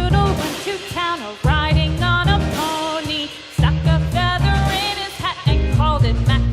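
Background music: a bouncy children's-song tune, its melody line gliding between notes over a steady pulsing bass beat.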